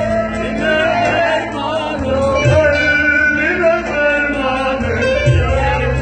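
Live Turkish music: a man sings a wavering, ornamented melody over a band with stringed instruments and low drum beats.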